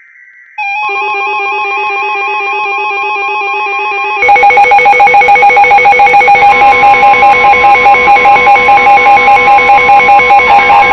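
Loud electronic emergency alert tones: a buzzy alarm warbling between two pitches, joined about four seconds in by a louder, rapidly pulsing alarm. A steady attention tone like the weather radio's alert tone comes in partway through.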